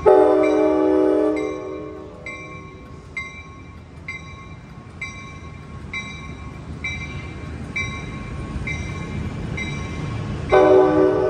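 Amtrak Capitol Corridor passenger train departing: its multi-tone horn sounds a loud blast lasting under two seconds, then another near the end, while a bell rings steadily about once a second over the low rumble of the moving train.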